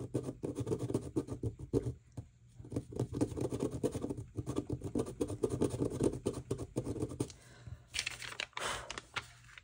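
Rapid, repeated scratching strokes of a piece of vellum being scraped to remove a flaw that would otherwise show. The strokes stop briefly and end with a sharper, hissier stretch near the end.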